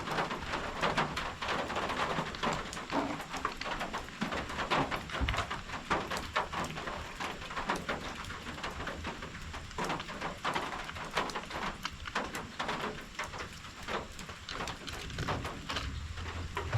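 Rain falling, a dense, irregular patter of light drop taps.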